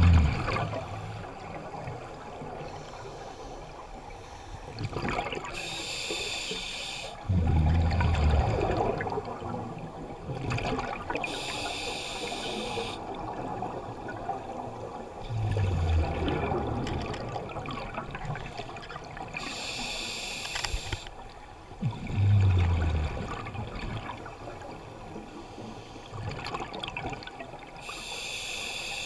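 A scuba diver breathing through a regulator, heard underwater: a hissing inhalation through the demand valve about every seven to eight seconds, each followed by a low bubbling rumble of exhaled air. There are four breaths.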